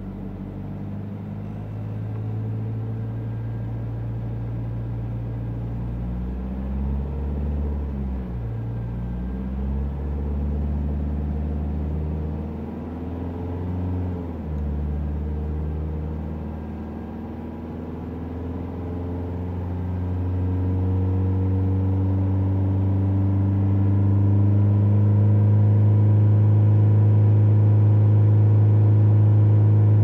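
Opel Insignia 2.0 CDTi four-cylinder diesel, fully warmed up, heard from inside the cabin while its revs are raised from idle to about 3000 rpm. The note wavers up and down in the middle, then climbs and grows louder over the last ten seconds.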